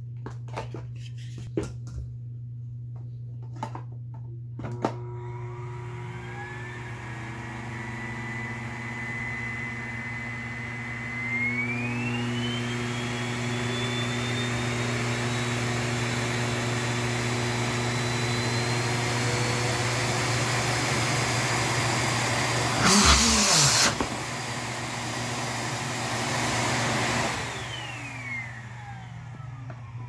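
Siemens Synchropower VS06A111 600-watt canister vacuum cleaner switched on after a few clicks of handling. Its motor spins up with a rising whine, rises again in pitch and loudness as the power dial is turned up, and then runs steadily. After a brief, much louder rush a little over twenty seconds in, it is switched off and the whine falls away as the motor runs down.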